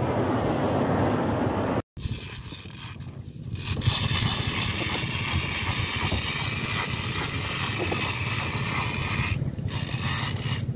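Fishing boat's engine running steadily, a low hum under wind and sea noise, with a brief dropout about two seconds in.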